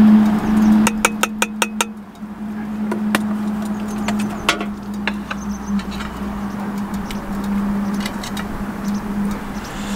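Beer poured from a can into a stainless steel camp cup, with a quick run of glugs and clinks about a second in and a few metal clinks afterwards. A steady low hum runs under it all.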